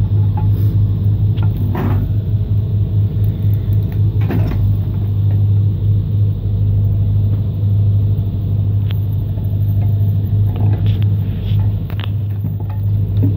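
Kubota KX61-3 mini excavator's diesel engine running steadily with a low hum, driving a hydraulic screw cone splitter into logs. Several sharp cracks come through as the wood splits apart.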